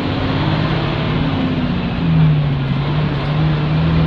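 Isuzu PE6H diesel engine of an Isuzu K-U31L bus pulling away under load, heard inside the cabin, its note drifting up and down.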